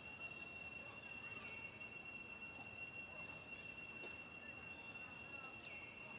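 Faint, steady, high-pitched drone of insects, with two short falling chirps: one about a second and a half in and one near the end.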